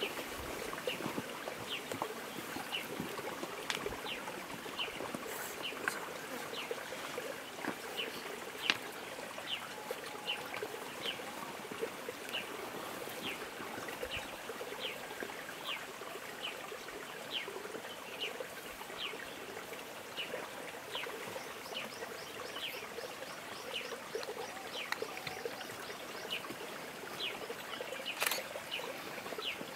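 Outdoor ambience: a bird repeats a short, high chirp that falls in pitch, about one and a half times a second, over a steady hiss. A brief knock sounds near the end.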